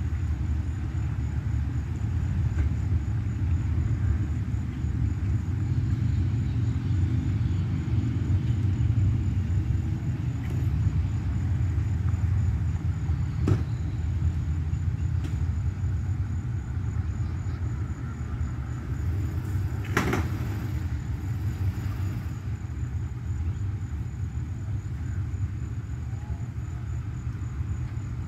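Low, steady rumble of boat and truck engines running at a boat ramp as a pontoon boat is driven onto its trailer. A single sharp clank about twenty seconds in, with a fainter knock a few seconds before it.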